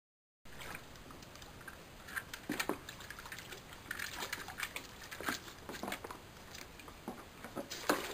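Water splashing and sloshing in a plastic paddling pool as a Staffordshire bull terrier digs and noses in it after a ball. The splashes are irregular and start about half a second in.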